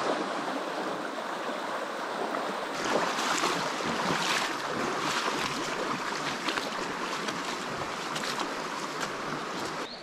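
Shallow forest stream running over stones in a riffle: a steady rush of water with small splashes, a little fuller from about three seconds in.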